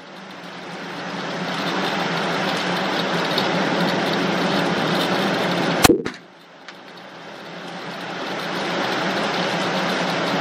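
A single handgun shot about six seconds in, fired in an indoor shooting range. Between shots there is a steady rushing background with a low hum, which drops away right after the shot and slowly swells back.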